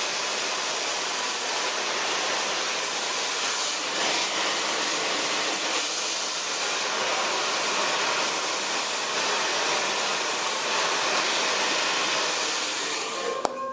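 Handheld blow dryer running steadily on hair, a continuous airy hiss, cut off abruptly just before the end.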